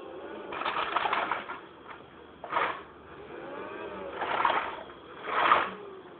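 Toy vacuum cleaner pushed in four short bursts of whirring, rattling noise, with fainter sounds rising and falling in pitch in between.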